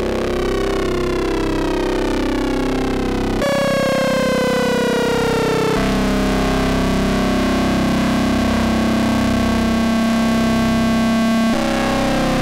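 Eurorack modular synthesizer playing a ring-modulated drone from two Rossum Trident oscillators. Its many partials slide up and down against each other as an oscillator's tuning is turned, and the timbre changes suddenly about three and a half, six and eleven and a half seconds in.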